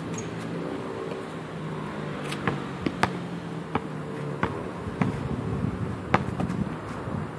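Basketball bouncing on an outdoor concrete court: a handful of sharp, irregularly spaced smacks over a steady background hum.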